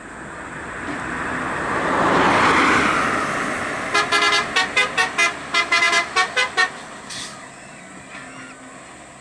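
A vehicle horn honked about a dozen times in quick, short toots, after the noise of a vehicle swells up and dies back.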